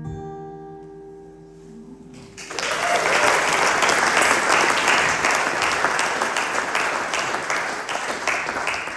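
A final acoustic guitar chord rings out and fades. About two and a half seconds in, an audience breaks into applause, which goes on steadily to the end.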